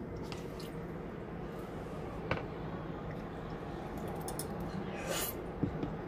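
Phone handling noise: fabric and skin brushing against the phone's microphone, with a few light taps and a short brushing sound about five seconds in, over a steady low hum.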